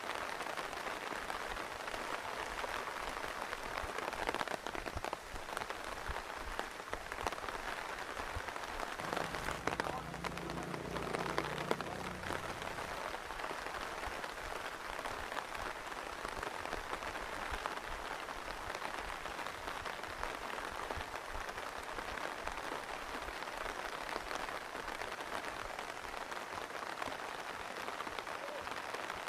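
Steady rain falling, an even hiss of drops on surfaces. For a few seconds around the middle a low hum runs underneath it.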